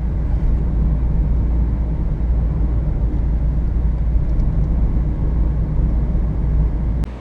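Steady, heavy low rumble of road and wind noise from a moving vehicle. It cuts off abruptly near the end.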